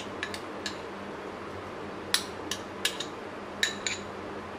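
Light, sharp clinks and taps of utensils on a glass bowl and a stainless-steel blender jug as soaked tamarind pulp is scraped into the jug, a few at a time with short gaps.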